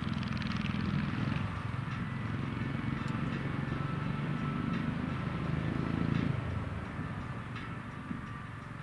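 Go-kart engine running at low revs with a dense low hum, fading away about six to seven seconds in.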